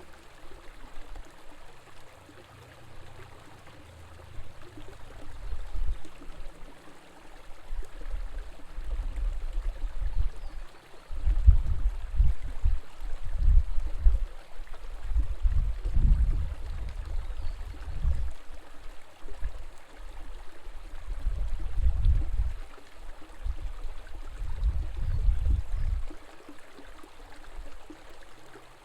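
River water flowing steadily, with repeated irregular swells of deep low rumble.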